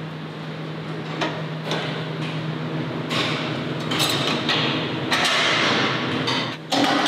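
Steady hum of abattoir machinery, with sharp metal knocks, and from about three seconds in a louder rushing noise, as lamb carcasses on hooks are moved along the overhead rail into the chiller room.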